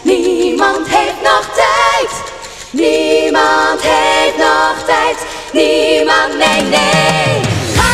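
Five women singing a close-harmony pop vocal passage in Dutch, in short phrases with brief breaks and little or no backing underneath. Near the end, lower instruments come in with a falling run.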